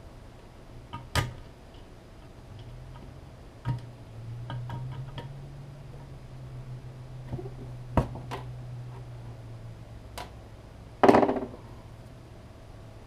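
Parts of a vintage Cowley automatic level being handled during disassembly: scattered sharp clicks and knocks, then a louder rattling scrape about eleven seconds in.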